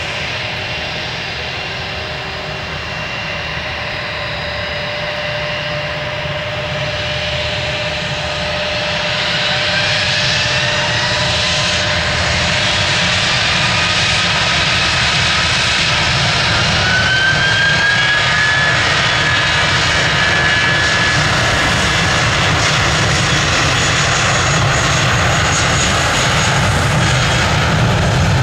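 Airbus A320's IAE V2500 turbofan engines whining at low thrust, then spooling up with rising whines to takeoff power and growing steadily louder as the takeoff roll begins.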